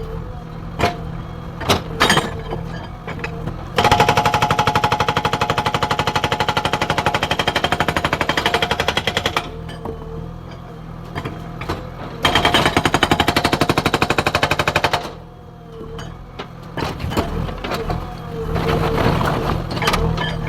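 Hydraulic breaker on a JCB 3DX backhoe loader hammering in rapid, even strokes, in two bursts: one starting about four seconds in and lasting some five seconds, and a shorter one of about three seconds in the second half. Between the bursts the backhoe's diesel engine runs, with a few single knocks.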